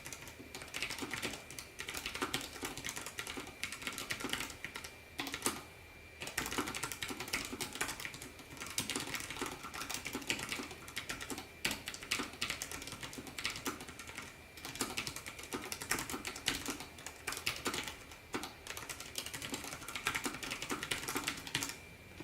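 Fast continuous typing on a low-profile mechanical keyboard with brown switches: a quiet, dense patter of key clicks, broken by a few short pauses.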